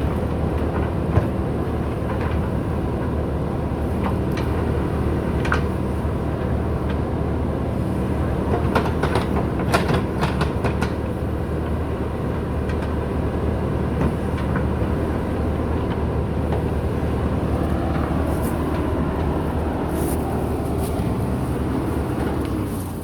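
JCB 3DX backhoe loader's diesel engine running steadily under work. A cluster of sharp metallic clanks comes about nine to eleven seconds in.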